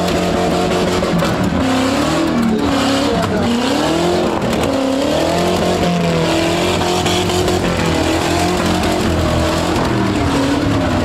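Several demolition derby farm trucks' engines revving hard at the same time, their pitch repeatedly rising and falling as they accelerate and back off, over a steady noisy background.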